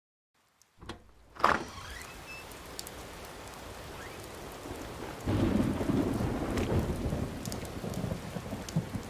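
Thunderstorm: a sharp thunder crack about a second and a half in, then steady rain that grows louder with a low rumble about five seconds in.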